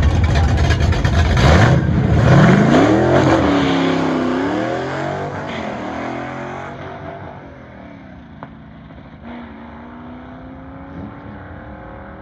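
First-generation Chevrolet Camaro drag car launching hard off the line, its engine note climbing in pitch and dropping back at each gear change, then fading as the car runs away down the strip.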